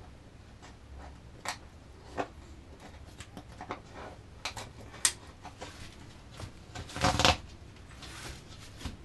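Metal tip of a screwdriver scraping and picking at cured resin and fiberglass on a surfboard, in short scattered scratches and clicks, with a longer, louder scrape about seven seconds in.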